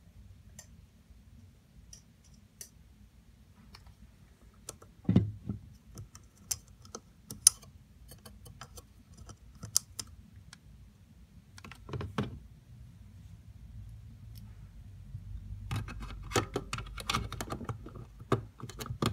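Hard plastic clicks and knocks as an action figure is pushed into the cockpit of a toy TIE Fighter: scattered single clicks, a few louder knocks, and a quicker run of clicking and rattling near the end.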